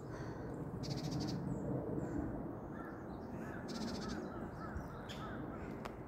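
Woodland birds calling: one bird gives a quick run of short rising-and-falling whistled notes near the middle, and two brief high trills come about a second in and near four seconds in, over a steady rustle.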